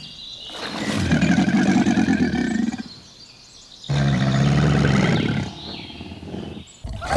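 A large animal giving two long, low calls, one about a second in and another about four seconds in, with birds chirping in the background.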